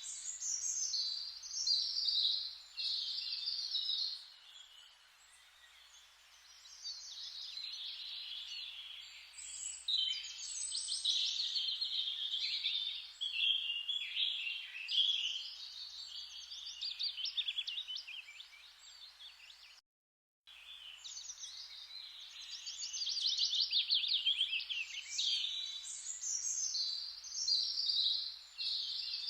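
Dense chorus of many songbirds chirping and trilling rapidly over each other, over a faint even hiss. The chorus thins for a few seconds early on and cuts out completely for about half a second two-thirds of the way through.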